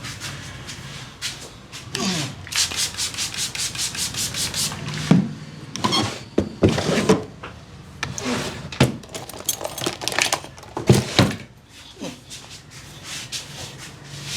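Hands massaging a head: fast, even rubbing or tapping strokes on the scalp and hair, about eight a second, followed by heavier, irregular rubbing strokes.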